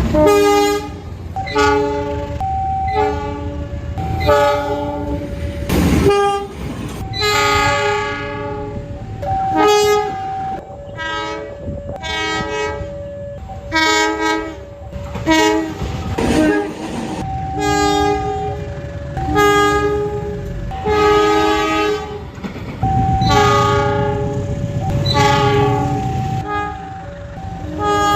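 Indonesian train locomotive's multi-tone horn sounding the Semboyan 35 horn signal as a rapid series of blasts, mostly short with some held longer, the chord changing from blast to blast. Underneath runs the low rumble of the moving train.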